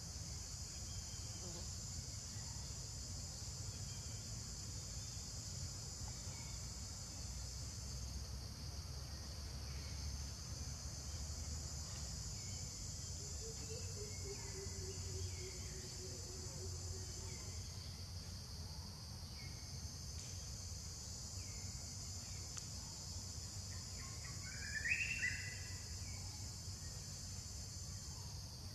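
Steady high insect chorus that drops away briefly twice and swells back, over a low rumble; near the end a single short high chirp is the loudest sound.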